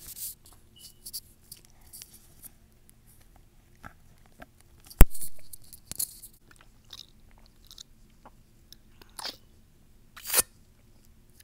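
A child drinking from a plastic Gatorade bottle: scattered small mouth and bottle clicks, with one sharp, loud click about five seconds in and another just before the end.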